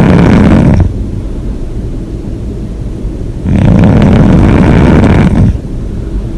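A person snoring loudly. One snore ends just under a second in, quieter breathing follows, and a second snore of about two seconds starts around three and a half seconds in.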